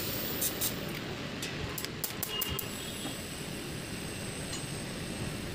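A few sharp clicks and taps, then about three seconds in a TIG welding arc strikes on the stainless-steel tube frame and burns with a steady high whine over a low workshop rumble.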